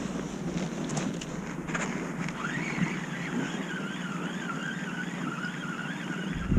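Electric fishing reel winding in a hooked fish: a motor whine that wavers up and down in pitch, starting about two seconds in after a few clicks of the rod being handled.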